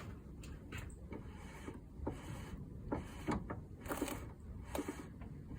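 Irregular knocks and clunks from an ES3 Honda Civic Ferio, the rumbling noise that a slider replacement has not cured.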